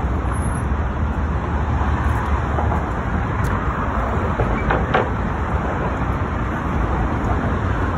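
Steady road traffic on the bridge roadway below: a continuous wash of passing cars and trucks, with a brief high chirp about five seconds in.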